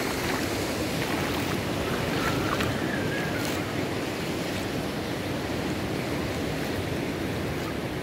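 Small waves washing up onto a sandy beach: a steady rush of surf, with a few faint high chirping calls about two to three seconds in.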